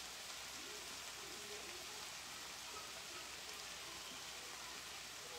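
Faint steady sizzle of ground beef, corn and bell peppers frying in a skillet.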